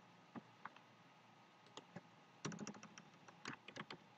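Faint typing on a computer keyboard: a few single key clicks, then from about halfway a quick run of keystrokes.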